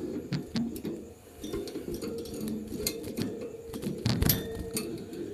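Thin metal wire birdcage clicking and rattling as a hand works its door and reaches inside to catch a small bird, with scattered light clicks and a louder cluster of rattles about four seconds in.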